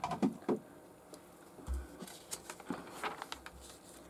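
Soft knocks and paper rustling as a printed catalogue's pages are handled and turned over, with a few sharp clicks near the start.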